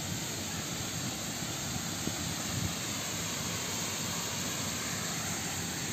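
Steady, even hiss of outdoor background noise, with no clear events in it.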